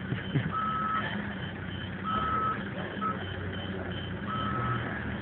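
Counterbalance forklift's reversing alarm beeping: a steady-pitched beep of about half a second roughly every one to two seconds, over a faster run of short, higher beeps. The truck's low running hum sits underneath.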